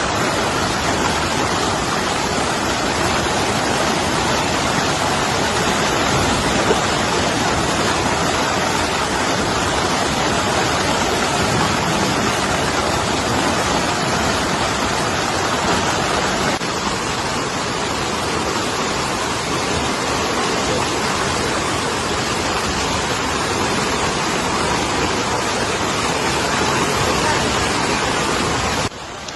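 The swollen, fast-flowing Ganges rushing in spate, a loud steady wash of water noise. It drops slightly in level a little past halfway.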